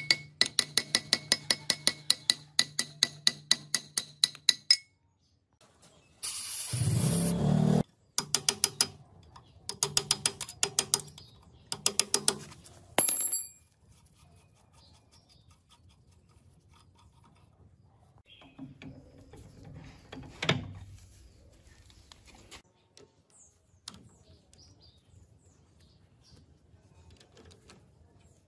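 Steel hammer tapping quickly on the rusted hub of a cast-iron milling machine handwheel, about four ringing blows a second, to knock the seized handwheel off its feed shaft. After a short burst of noise come three more quick runs of taps, then only faint clicks of tools being handled.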